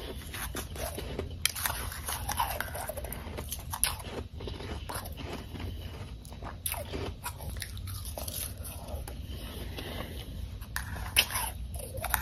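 Mouthfuls of powdery ice being bitten and chewed, crunching and crackling in irregular bites, with a metal spoon scraping in an enamel bowl as the next spoonful is scooped.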